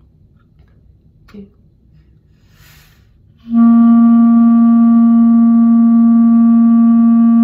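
After a quiet pause with a brief soft hiss, a B-flat clarinet starts a long tone on C about three and a half seconds in and holds it at a steady pitch and even loudness, with no pulsing between the counts: a smooth sustained long-tone exercise.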